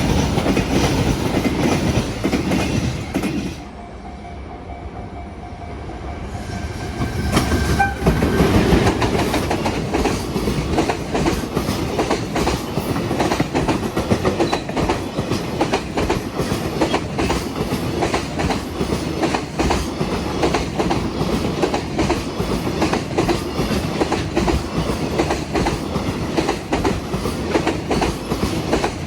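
Freight container train passing close by: a steady rumble with rapid clatter of wagon wheels over rail joints. The sound dips for a few seconds about four seconds in, then comes back and runs on steadily.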